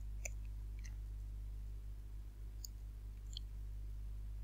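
Four faint, sparse clicks from a computer keyboard as text is typed, over a steady low electrical hum.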